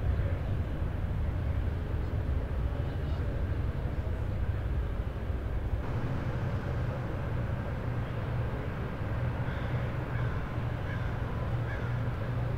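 Steady low rumble of outdoor background noise, shifting slightly about six seconds in.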